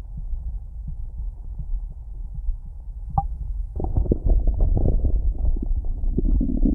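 A heartbeat heard close up as steady low thumps. A little under four seconds in, louder stomach gurgling starts over it.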